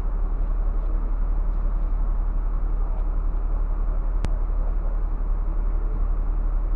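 Scania coach's diesel engine idling steadily, heard from the driver's cab, with one sharp click about four seconds in.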